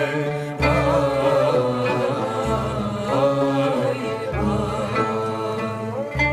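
A woman singing an Ottoman classical yürük semai in makam Zavil, in long ornamented melismatic lines, over instrumental accompaniment with a low beat about every two seconds.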